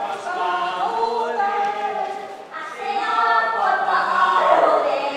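Unaccompanied choir singing, several voices holding notes together, with a short break between phrases about halfway through.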